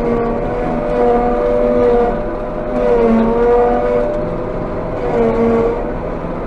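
Claas Jaguar 830 forage harvester running while chopping hay, heard from inside its cab: a loud, steady droning whine from the machine. Its pitch dips briefly about three seconds in and again about five seconds in.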